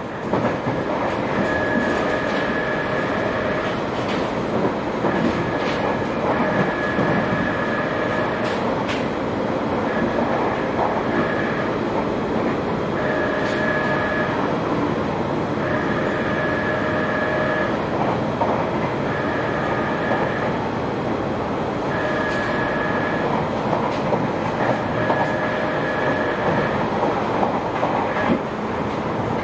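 Northern Line 1995 Stock tube train running between stations, heard from inside the carriage: a steady rumble with scattered rail-joint clicks and a high tone that comes and goes every second or two.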